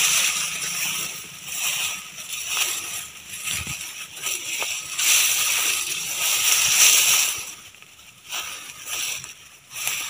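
Tall dry grass and stems rustling and swishing against a body and phone pushing through them, in uneven swells, with two quieter lulls near the end.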